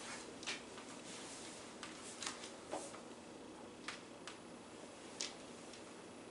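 Pen strokes and taps on paper, with light paper rustles: a handful of short, irregular ticks over a steady room hiss.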